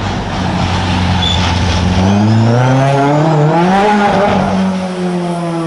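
Historic rally car's engine accelerating hard on a special stage: steady at first, then the pitch climbs for about two seconds as it revs up through the gear, and holds near the end.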